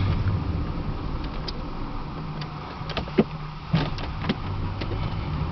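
Interior noise of a 1987 Dodge Daytona electric conversion driving slowly: a steady low hum with road noise, and a few light clicks or knocks around three to four seconds in.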